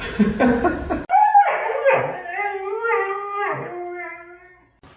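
A dog howling: one long wavering howl that rises and falls in pitch over about four seconds, starting about a second in after a short stretch of muffled noise.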